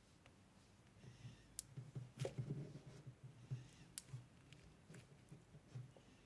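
Slime being mixed and kneaded by hand: faint sticky clicks and soft squelches, busiest around two to three seconds in.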